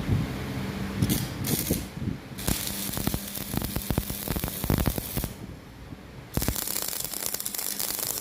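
Electric arc welding crackling in two long bursts, with a quieter gap between them, over a steady low electrical hum.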